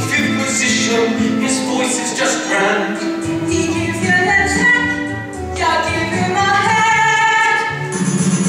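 A musical-theatre cast sings a show tune with live accompaniment, a female voice prominent, and holds one long note near the end.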